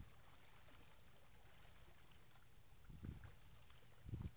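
Near silence: a faint steady low background rumble, with two short low thumps on the microphone, about three seconds in and again near the end.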